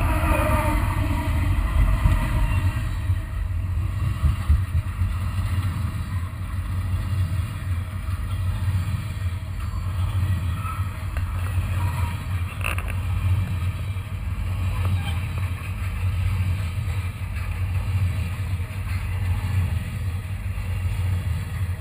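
Train rumbling past at close range: a loud, steady low rumble. A horn-like note fades out in the first moment, and there is a single sharp click about two-thirds of the way through.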